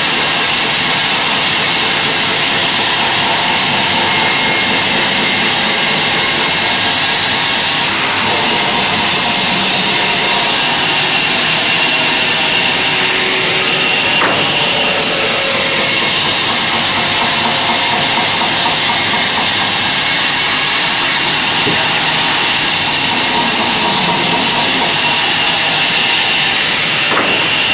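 Large band saw running, with steady loud noise and a faint high whine as it cuts timber. A single knock about halfway through.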